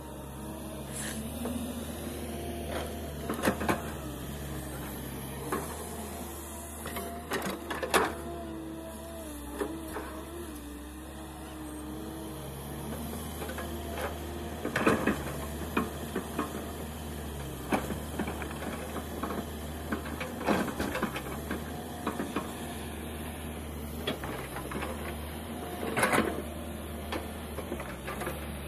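Kobelco SK210LC hydraulic excavator working as it digs and dumps soil: a steady diesel drone with a wavering hydraulic whine. Sharp clanks and rattles from the bucket and falling clods come several times.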